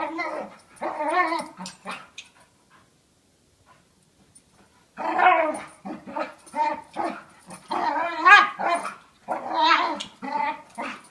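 A dog making odd growling, whining vocal noises while play fighting with another dog, in short rapid bouts. The noises stop for about three seconds early on, then come back as a longer, busier run.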